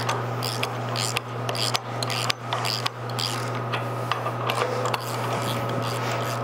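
Ratchet wrench clicking irregularly while bolts on a Wilwood brake caliper and spindle are turned, over a steady low shop hum.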